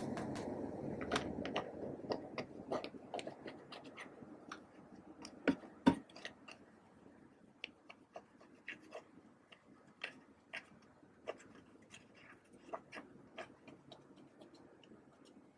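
Pressed-powder eyeshadow being scraped out of its palette pans with a plastic spatula: irregular crumbly scratches and small ticks, densest in the first two seconds, with a sharper crack about six seconds in.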